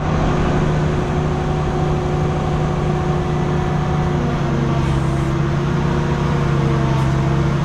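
Boat travel lift's engine running steadily with a low, even hum.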